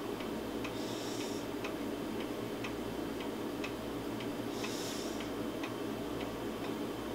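Steady ticking, about two ticks a second, over a low steady hum, with a short soft hiss about a second in and again about five seconds in.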